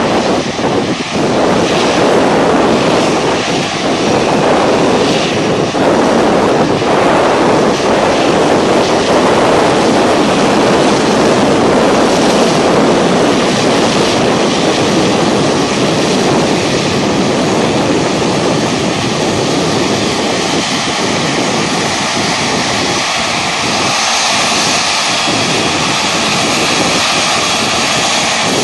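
Rolls-Royce Trent XWB turbofans of an Airbus A350-1000 at low power as the airliner taxis and turns close by: a loud, steady jet rush, with a faint high whine that holds from about halfway through.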